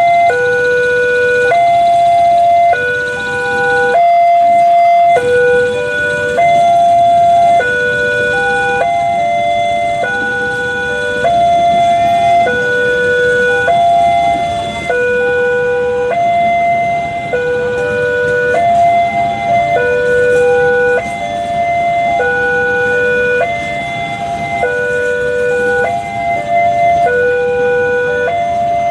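Railway level-crossing warning alarm sounding continuously: electronic tones that switch between a few pitches about once a second in a repeating pattern. The passing train rumbles underneath.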